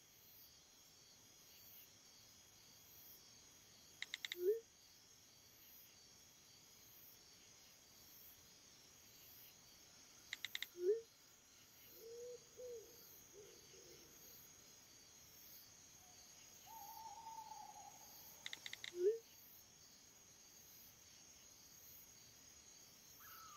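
Three times, a few quick taps on a phone's keyboard, each followed by a short rising message-sent tone, over a faint steady night-time hiss of insects. Fainter low tones come in the middle.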